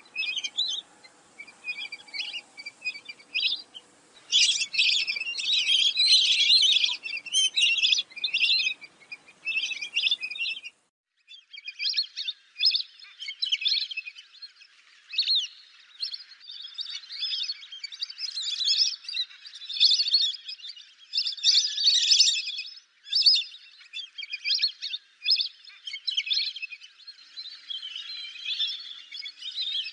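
A flock of lesser whistling ducks calling: rapid, high whistled chirps in dense clusters. About eleven seconds in there is a short break, after which the faint low background drops away and the whistling goes on.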